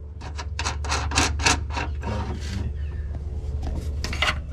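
Steel fuel-line flare nut being worked loose by hand from the fuel pump hanger on a Nissan Gloria's fuel tank: a quick series of metallic scraping clicks for about two and a half seconds, then a few more near the end, over a low steady hum.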